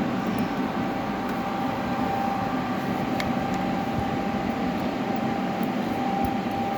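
Electric fishing inverter running under load on test, a steady whine over a steady hum and hiss, drawing around 35 to 40 amps at low voltage.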